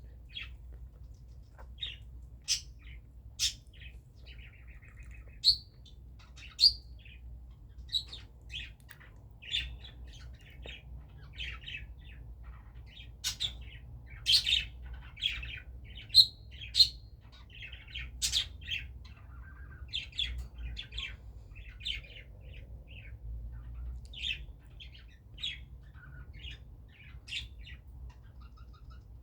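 Pet lovebirds giving short, high-pitched chirps and squawks at irregular intervals, a few of them much louder than the rest, over a faint low hum.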